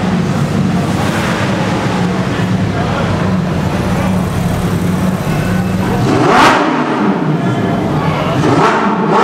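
Supercar engines running at low speed as cars crawl through a tunnel, with two sharp rev blips, the loudest about six and a half seconds in and another near the end, their pitch rising and then dropping away.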